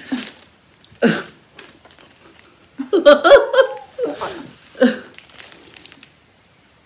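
Two women laughing in short bursts, with the loudest stretch of laughter about three seconds in.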